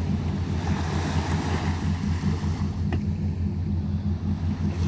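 Wind buffeting the microphone in a steady low rumble, over the hiss of small waves breaking on a sandy beach.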